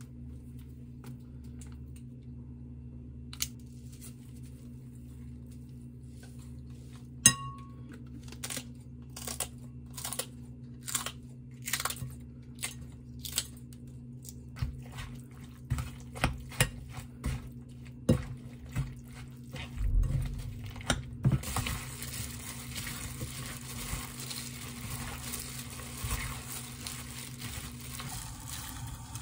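Kitchen scissors snipping green chili peppers over a glass mixing bowl: a string of sharp snips, about one or two a second, after a single ringing clink about seven seconds in. Near the end the snips give way to a steady rustling and squishing as a plastic-gloved hand mixes the marinade.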